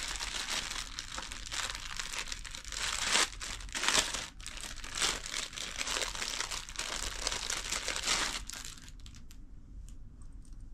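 Packaging crinkling and tearing as a wrapped item is opened by hand, dense and uneven with a few louder crackles, stopping about eight and a half seconds in and leaving only a few faint ticks.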